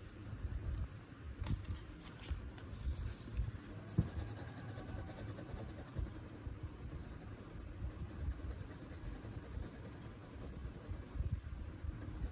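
Crayon scratching back and forth on a sheet of paper as a picture is coloured in, with a few light taps and a brief paper rustle in the first three seconds.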